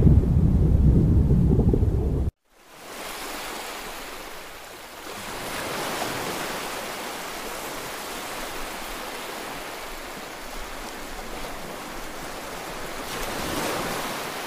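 Intro sound effects: a deep, loud rumble that cuts off abruptly about two seconds in, then after a short silence a steady rushing noise like surf or wind that swells slightly twice.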